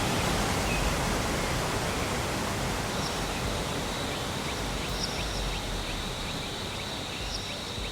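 Steady rushing noise of a tall waterfall with a drop of about 80 m, easing slightly in level. From about three seconds in, a high thin steady tone with short repeated chirps sits faintly above the rush.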